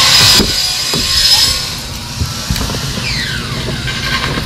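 A car door latch clicking and an SUV door being pulled open, over a steady high hiss that is loudest in the first second and a half.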